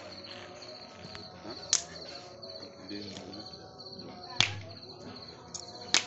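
Crickets chirping in a steady pulsing trill, with sharp pops from burning wood in a campfire: one about two seconds in, one about four and a half seconds in, and two close together near the end.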